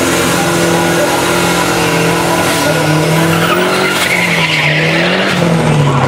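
A car doing a burnout before a drag run: the engine is held steady at high revs while the rear tyres spin and squeal. The squeal is loudest about four seconds in.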